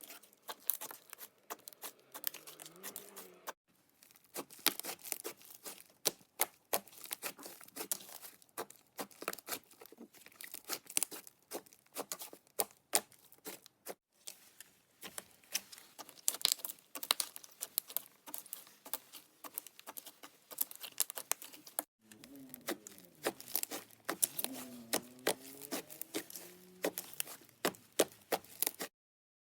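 Clay slime being squished, folded and stretched by hand, giving a dense run of small sticky clicks and pops. The sound stops abruptly near the end.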